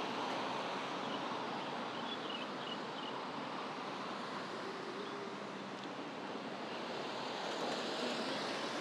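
Steady hiss of road traffic on a wet road, growing a little louder near the end as a vehicle passes.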